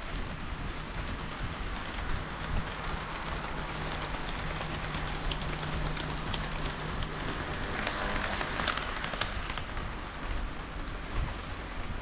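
HO-scale model train of KiHa 40 and KiHa 58 diesel railcars running past on sectional track. Its wheels make a steady rolling rush over the rails under a low motor hum, with a run of sharp clicks over the rail joints as it passes closest, about halfway through.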